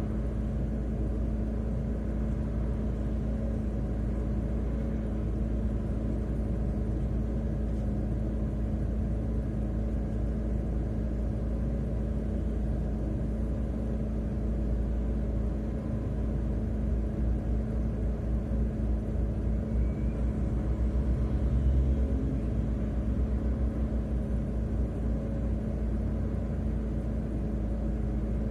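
Car driving on the road, heard from inside the cabin: a steady low rumble of engine and tyres with a constant hum. About two-thirds of the way through, a rhythmic low throbbing swells for a few seconds and then fades.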